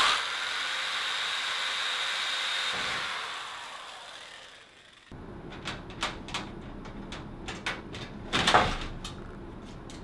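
Corded electric drill starting with a sharp bite and running steadily against the TV's sheet-metal back panel, then dying away over a couple of seconds. After that come light clicks and taps of a screwdriver and fan-mounting hardware, with one louder clatter near the end.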